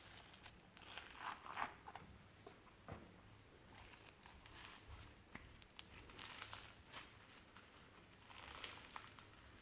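Slime being squished and folded by hand, in soft irregular bursts of sticky clicks and rustling.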